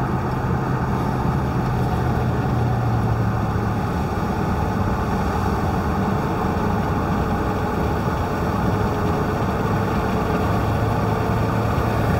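Car interior noise while driving: steady engine and road noise with a low hum.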